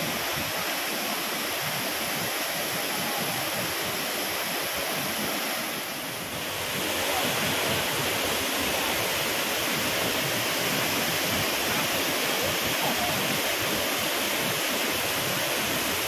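A waterfall cascading over rock ledges: a steady rush of white water. It dips briefly about six seconds in, then runs a little louder.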